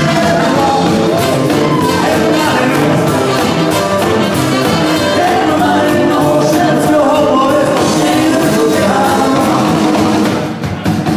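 A live band plays an upbeat rock and roll number on drum kit, guitars and keyboards, with singing over it. The music drops briefly near the end.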